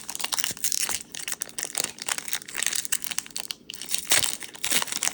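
Plastic and foil packaging of a Pokémon trading card product crinkling and tearing as it is opened by hand: a run of irregular crackles.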